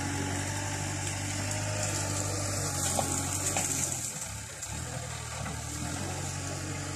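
Diesel engine of a JCB backhoe loader running steadily with a low hum, its note shifting slightly about four seconds in.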